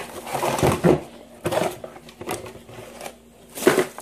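Cardboard box and packing being handled as a car amplifier is taken out onto a table: a series of short rustles and knocks, the loudest a little before the end.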